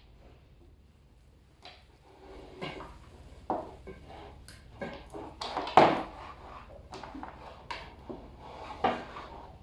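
Hands handling cables and plastic connectors, with irregular clicks and knocks as a T-cable connector is plugged into an LED pixel tube; the sharpest knock falls a little before six seconds in.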